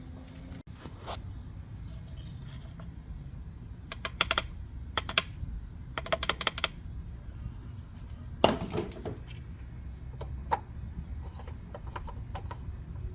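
Clusters of small sharp clicks and taps, several in quick succession about four, five and six seconds in, a louder knock at eight and a half seconds, then lighter ticks, over a steady low hum.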